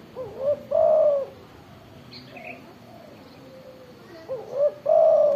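Spotted dove (tekukur) singing its cooing song twice, once near the start and once near the end: each phrase is a couple of short rising notes and then one long, loud coo.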